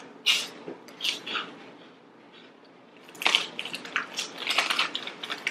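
Plastic snack bag of Utz cheese curls crinkling as a hand rummages in it, mixed with crunching as the curls are eaten. A few short rustles come first, then a brief lull, then a busy run of crinkling and crunching.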